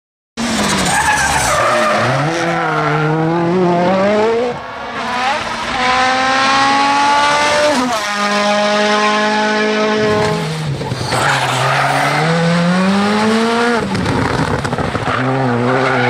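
Rally cars' turbocharged four-cylinder engines at full throttle, starting abruptly after a moment of silence. The pitch climbs hard and then drops sharply with each upshift as the cars pass.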